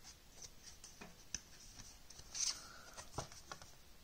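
Faint handling of large round cardstock oracle cards: a few light ticks and taps as a card is set down and the next one picked up, with a short card slide about two and a half seconds in.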